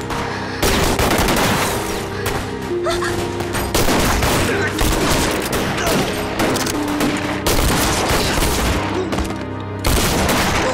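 Rapid gunfire, many shots in quick succession, with background music underneath.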